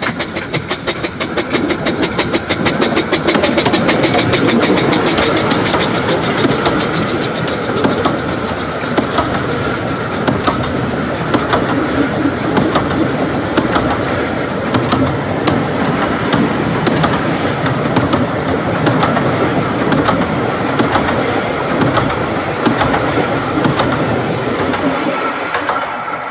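Narrow-gauge steam locomotive No.6 'Blickling Hall' running past with its train, loudest about four seconds in, then its coaches rolling by with a steady clickety-clack of wheels over rail joints. The sound drops away near the end as the last coach passes.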